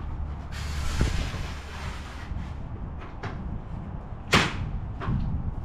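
Arms of a CareFree manual RV awning being slid up: a rushing, scraping slide in the first couple of seconds and a few light clicks, then a sharp loud clack about four seconds in as an arm locks into place so it catches.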